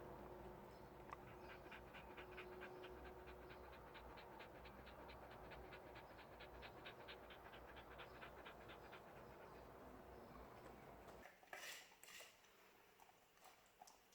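Akita dog panting faintly, quick even breaths about four to five a second that fade out after several seconds. A couple of brief rustles or clicks follow near the end.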